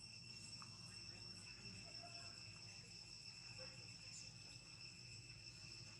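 Faint, steady high-pitched trilling of insects such as crickets, over a low background hum.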